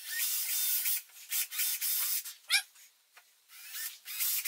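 Cordless drill boring small pilot holes through the aluminium lid of a Givi Trekker top case: several short bursts of the bit cutting into the metal, with a brief rising squeal about two and a half seconds in and a pause just after three seconds.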